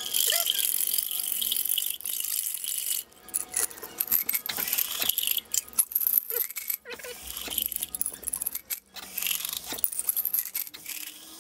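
Steel exhaust studs and nuts rattling and clinking against the inside of a glass mason jar as it is swirled in baking-soda water to neutralize cider vinegar, with water splashing into the sink as some is tipped out.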